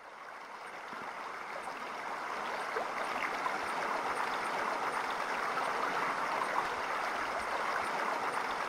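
Shallow mountain creek babbling over stones, fading in from silence over the first three seconds and then running steadily.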